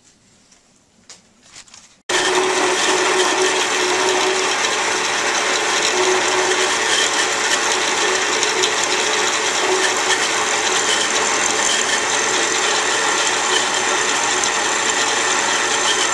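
Electric drill running steadily as it bores rivet holes through a soft, unhardened quarter-inch steel knife blank. The motor sound starts abruptly about two seconds in.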